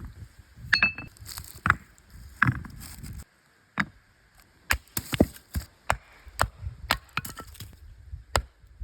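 Irregular sharp wooden knocks and snaps, a dozen or so, with a brief drop to near quiet about three seconds in.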